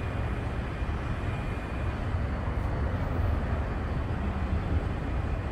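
Steady city street ambience, mostly a low rumble with no distinct events standing out.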